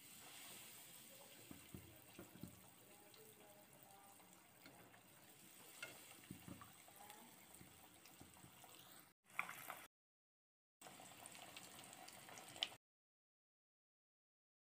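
Faint sizzling of breadcrumbed egg kababs deep-frying in hot oil, with a few light clicks. The sound drops out twice and goes silent for the last two seconds.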